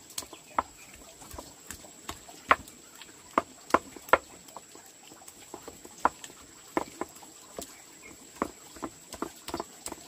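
A series of light, sharp knocks and taps at an uneven pace, a few each second, with the loudest ones about two and a half and four seconds in.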